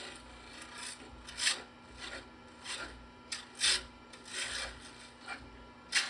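Lathe running with a faint steady hum while a round cutter shaves a spinning pen blank, giving short irregular scraping hisses every half second to a second as the tool is worked along it, rounding over the blank.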